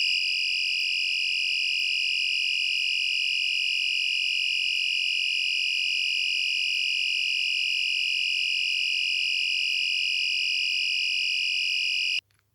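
AE&T T105N fire alarm sounder playing its tone no. 24: a steady, high-pitched electronic tone that cuts off suddenly near the end.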